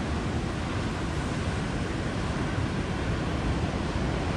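Steady rush of heavy storm surf and wind, with wind buffeting the microphone.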